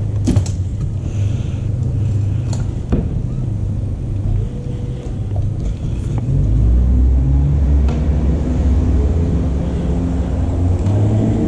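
A steady low rumble that swells about six and a half seconds in, with a few sharp clicks and taps from the fishing rod and reel being handled.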